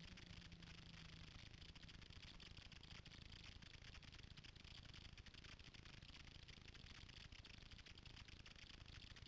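Near silence: a faint low rumble and a steady hiss.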